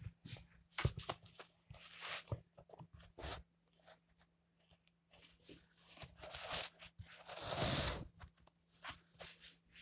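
Handling noise from a phone camera being picked up, carried and set down: scattered clicks, knocks and rubbing against the microphone, with a longer rustling scrape about eight seconds in, over a faint steady hum.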